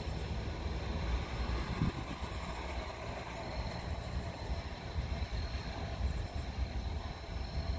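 Low, steady rumble of a freight train of tank cars running away down the line, with a car driving across the grade crossing partway through.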